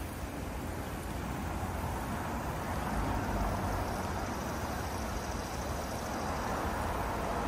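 Steady rush of flowing creek water, an even noise with no distinct events.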